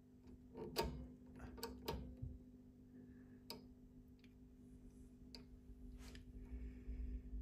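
Several short, sharp clicks at irregular intervals as the knobs and switches of a tube-testing power supply are turned, over a faint steady hum.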